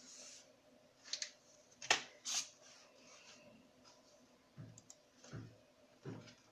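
A few sharp clicks and taps, the sharpest about two seconds in, from hands handling the pictures or the recording phone, with faint rustles in a small quiet room.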